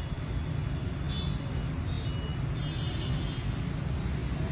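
Steady street traffic rumble, with a few faint high chirps about a second in and again about three seconds in.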